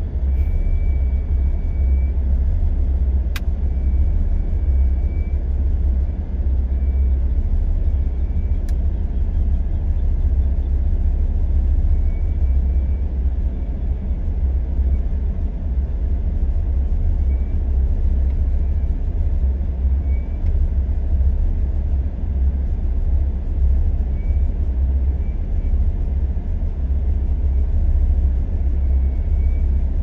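Several LiuGong single-drum road rollers driving slowly forward in a line: their diesel engines and steel drums on the gravel road base make a steady, deep rumble.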